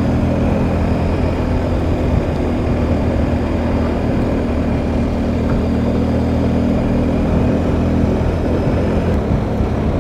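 BMW R1250 GSA's boxer-twin engine running steadily at a constant road speed, with wind and road noise.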